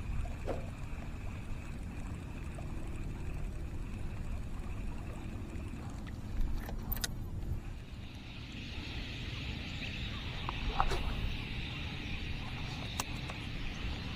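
Outdoor ambience with wind rumbling on the microphone and a steady high drone, which changes after a cut about eight seconds in. A few sharp clicks break through now and then.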